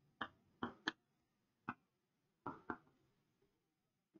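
Chalk tapping and clicking against a chalkboard while writing: about six short, sharp taps, irregularly spaced and faint.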